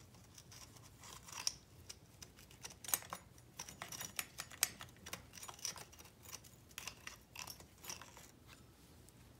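Faint, scattered clicks and light clinks of small metal engine parts and hand tools being handled, with a few sharper ones about one and a half, three and four and a half seconds in.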